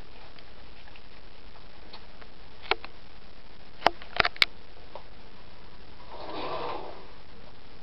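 A kitten playing with a cable on a tiled floor: a few sharp taps and clicks, three close together about four seconds in, then a short rustling scrape near the end, over steady hiss.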